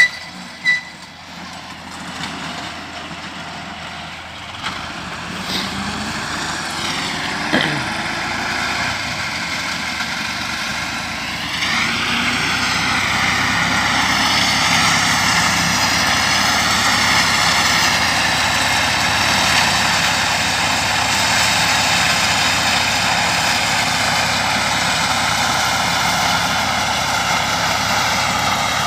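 Engine of a hay-mowing machine speeding up in two steps, about seven seconds in and again around twelve seconds, then running steadily at high speed. A couple of sharp knocks sound right at the start.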